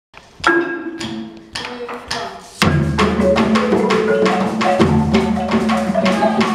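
Marimba de chonta plays a few sparse ringing notes, then about two and a half seconds in the full ensemble comes in together: bombo and cununo drums with the marimba in a steady, dense juga rhythm.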